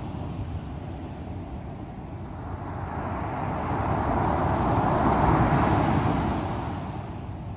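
Strong sea waves breaking on the shore, with a steady low rumble of surf; one wave swells up from about three seconds in, crashes loudest around five seconds, and washes out by near the end.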